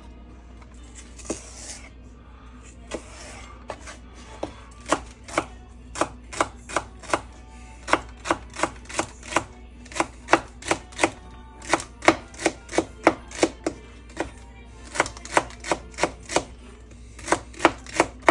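Chef's knife dicing celery on a wooden cutting board: a few scattered knocks at first, then steady chopping at about three strokes a second, pausing briefly twice near the end.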